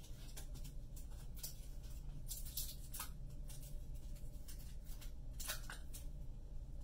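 Clear adhesive tape pulled off a desk tape dispenser and torn off, with paper being handled as the strips are pressed on; a few short, sharp rasps, the loudest about two and a half and five and a half seconds in.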